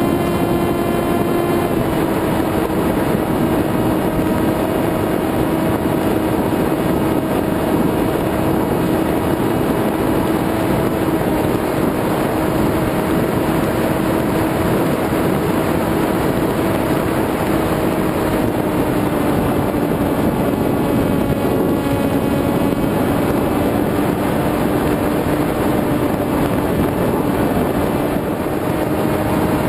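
Electric motor and propeller of an FPV model aircraft, heard from its onboard camera: a steady whine that drops slightly in pitch about two seconds in and sags a little lower later on, over heavy wind rush on the microphone.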